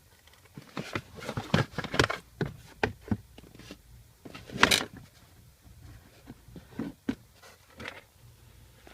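Irregular clicks, knocks and scrapes, like hands handling hard parts, with one longer, louder scrape about halfway through.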